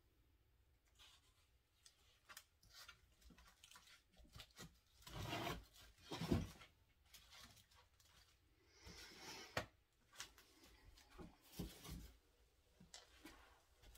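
Quiet, intermittent rubbing and scratching of craft materials being handled, with a few light clicks.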